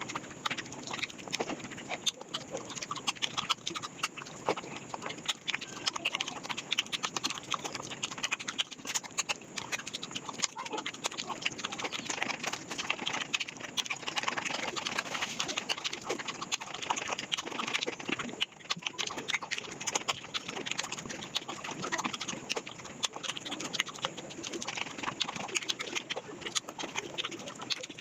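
Eating sounds played back at five times speed: rapid, wet chewing and mouth clicks running together into a dense, continuous clatter.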